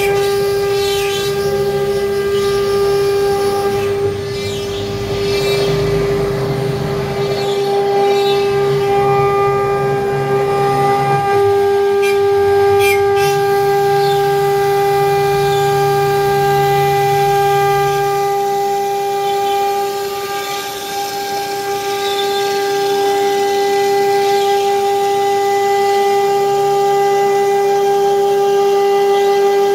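CNC router spindle running with a steady high-pitched whine at one pitch, while the cutting and gantry drive noise underneath rises and falls every few seconds as the bit works through the sheet.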